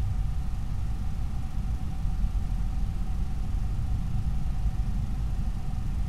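Steady low rumbling noise with a thin, unchanging high whine over it; nothing starts, stops or changes.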